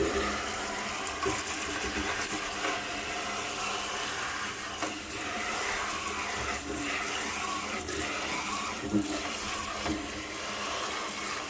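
Kitchen sink tap water running steadily, rinsing reusable air-conditioner filters in the sink.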